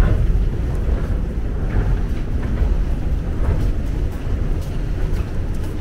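Subway station background: a low, steady rumble with faint scattered footsteps.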